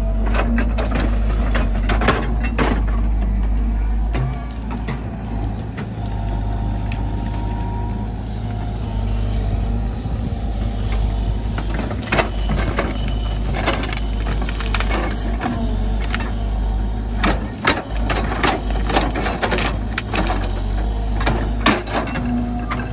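Tracked JCB excavator's diesel engine running steadily, with irregular knocks, cracks and scrapes as the machine works through mud and the branches of a beaver dam.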